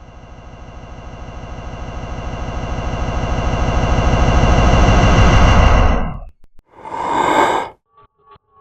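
Synthetic riser sound effect: a rapidly pulsing, buzzy tone swelling steadily louder, then cutting off suddenly about six seconds in. A short noisy burst follows, and quick ticks begin near the end.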